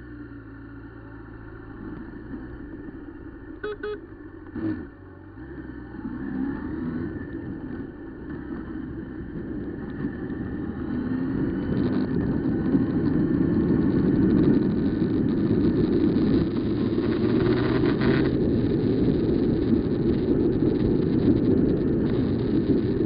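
Honda CB1000R's inline-four engine running and pulling away, its pitch rising, with a couple of short sharp sounds about four to five seconds in. From about eight seconds on, wind rush on the microphone grows louder as the bike gathers speed and covers the engine.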